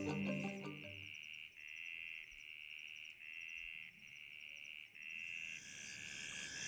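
Night insects calling, cricket-like: a high trill pulsing on and off in repeated bursts just under a second long, with a finer, higher trill above it. More insects join in toward the end. Music fades out in the first second.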